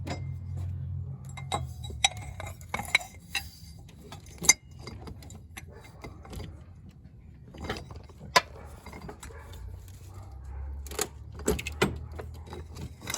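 Metal hand tools, a wrench with a pipe slipped over it for leverage, clinking and knocking in scattered sharp clicks against a stuck thermostat-housing bolt, over a low steady hum.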